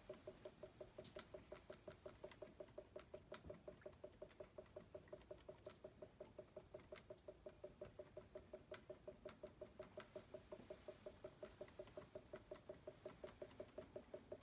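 Water glugging through the hole in the cap between two taped-together plastic bottles, a faint, even pulsing of about five glugs a second with a hollow pitch, dotted with scattered small clicks.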